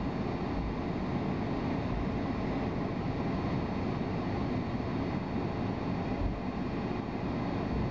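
Steady cabin noise of a jet airliner taxiing, heard from inside the passenger cabin: a low, even rumble of engines and rolling wheels, with a faint high whine.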